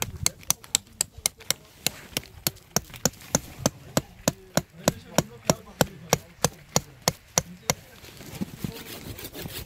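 Rapid, even knocking of sharp strikes, about three a second, like light hammering or chopping, stopping near the end.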